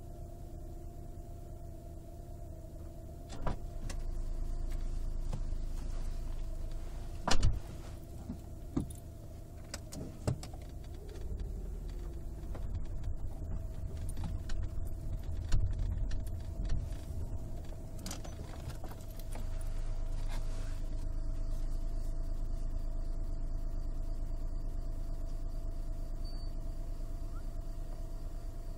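Car engine running, heard from inside the cabin, with several sharp clicks and knocks in the first ten seconds, the loudest about seven seconds in. About twenty seconds in, the running noise steps up louder and stays steady.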